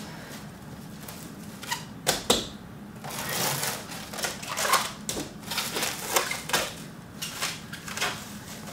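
Plastic cling wrap crinkling and rustling as hands pull it up and press it around a wrapped cake. There are a few sharp crackles about two seconds in, and denser crinkling from about three seconds on.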